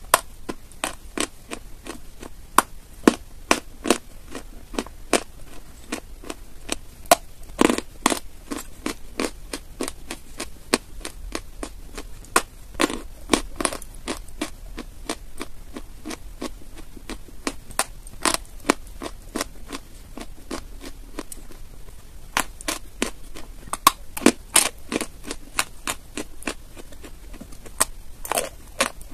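Close-up crunching of a dry, chalk-like white block being bitten and chewed: a long run of sharp, irregular crunches and cracks, roughly two or three a second, with a few louder snaps.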